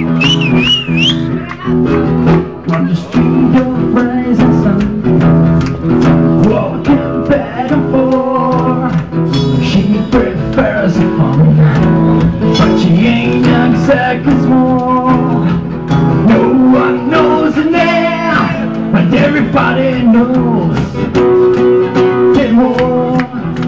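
Live band playing loudly, with electric and bass guitars and an acoustic guitar, and a voice singing over them.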